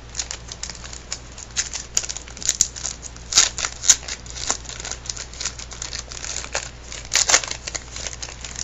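Crinkly card-pack wrapper being torn open and handled: a dense run of crackles, loudest about three and a half and seven seconds in.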